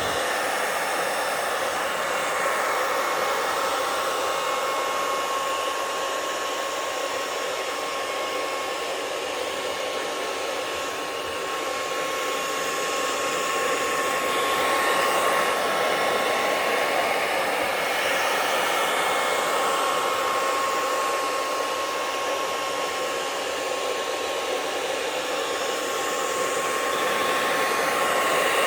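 Handheld hair dryer running on its hot setting: a steady rushing blow of air with a thin constant whine from its motor and fan.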